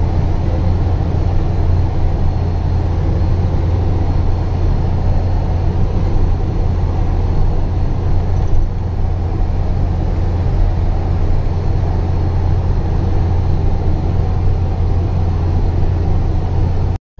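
A truck's engine running steadily as it drives a rough dirt road, heard from inside the cab as a loud, deep, even drone with road noise over it.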